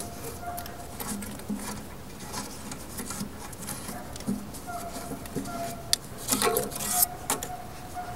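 Pieces of burnt lump charcoal clinking and scraping against each other and the heavy steel ash basket as a gloved hand pushes them in. A few sharper clinks come a little past two-thirds of the way through.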